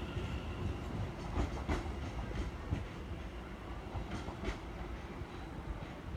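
Class 710 electric multiple unit pulling out and running away along the track, a steady low rumble with its wheels clicking over rail joints, the clicks coming in pairs.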